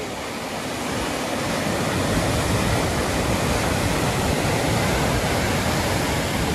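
Ocean waves crashing on shoreline rocks: a steady wash of surf that swells louder about a second in as a wave breaks and its white foam surges in.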